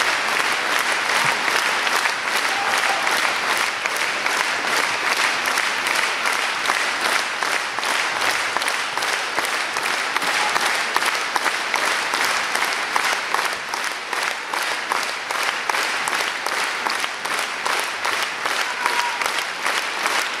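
Theatre audience applauding a curtain call: sustained dense clapping from a full hall, with a steady beat running through it.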